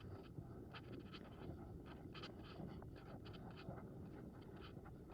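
Faint steady rumble of a gear-laden wagon's wheels rolling along, with many short, scattered rattles and scrapes from the load.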